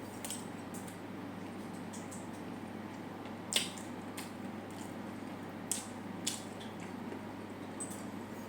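Close-miked chewing: soft, wet squishing with scattered sharp mouth smacks and clicks, the loudest about three and a half seconds in, over a steady low hum.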